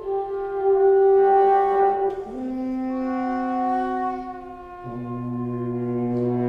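Long held notes from wind instruments, French horn among them, overlapping and shifting pitch every two seconds or so; a lower note comes in about five seconds in.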